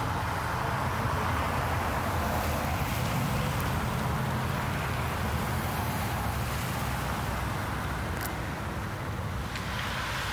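Cars driving slowly past on a snowy, icy road: steady tyre and engine noise with a low rumble, and a few faint sharp ticks.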